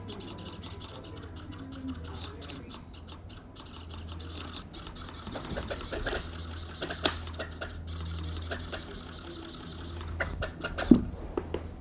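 Fast rasping and scraping, growing denser about five seconds in, with a sharp knock near the end.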